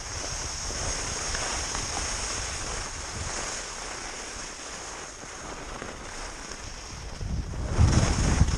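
Skis hissing and scraping over firm snow on a downhill run, with wind buffeting the camera microphone. The low wind rumble grows louder near the end as the skier speeds up.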